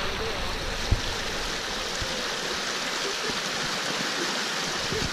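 Stream water rushing over a smooth rock ledge in a steady, even hiss, with one short knock about a second in.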